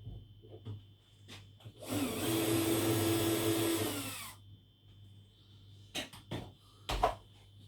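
A power tool, such as a cordless drill or driver, runs for about two seconds at a steady pitch and winds down. A few short knocks follow near the end.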